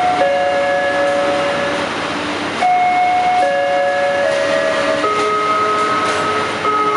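Arriving passenger train with its brakes squealing: long steady shrieking tones that jump to a new pitch every second or so, over the rumble and clicking of the wheels on the rails.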